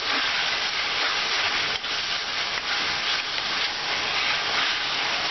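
Raw minced meat sizzling in hot mustard oil in a wok: a steady frying hiss, with the faint scrape of a wooden spatula stirring and turning the meat as it starts to brown.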